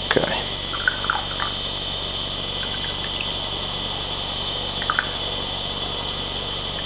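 Green tea trickling from a small ceramic teapot into a small glass cup, with a few light clinks, over a steady high background hiss.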